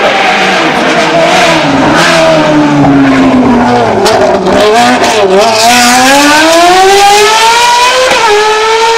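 Ferrari 360 N-GT race car's Michelotto-tuned 3.6-litre Ferrari F131 V8, naturally aspirated and revving to 9,500 rpm. The engine note falls for about five seconds as the car slows, with a few quick blips, then climbs steadily as it accelerates hard, dipping briefly once near the end at a gearchange.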